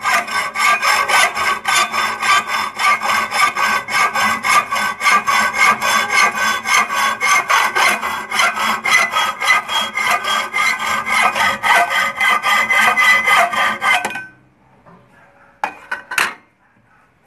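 Hand hacksaw cutting steel rebar clamped in a bench vise: quick, evenly spaced back-and-forth strokes that stop about fourteen seconds in. A couple of short knocks follow near the end.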